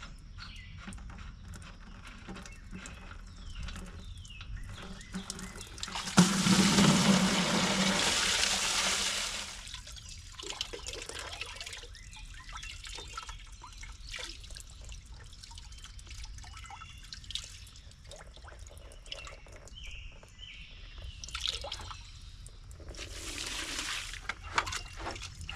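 Water pouring and splashing during a tractor radiator flush: a loud gush lasting about three seconds, trickling and dripping after it, and a second shorter gush near the end.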